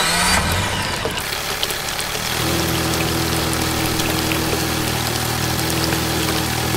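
Shallow creek water trickling and babbling over stones. About two seconds in, a steady low drone of several tones joins it and holds.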